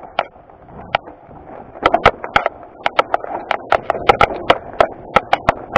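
Mountain bike clattering down a rocky trail: sharp, irregular knocks and rattles as the tyres strike rocks and the bike jolts, over a steady rush of wind and tyre noise. The knocks are sparse at first and come thick and fast from about two seconds in.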